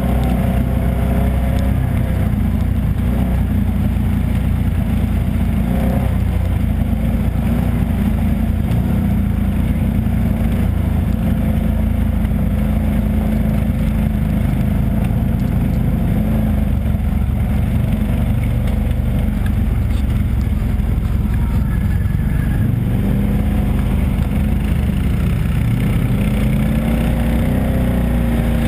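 ATV engine running steadily as the quad is ridden along a muddy trail. Its note rises and falls with the throttle, most clearly near the end, over a constant low rumble.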